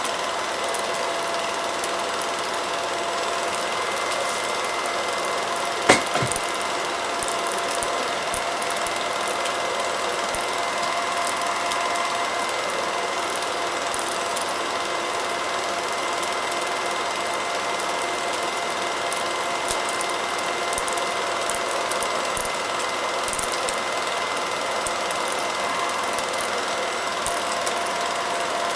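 Movie projector running: a steady mechanical whir with a constant hum tone and fine rapid clatter, and one sharp click about six seconds in.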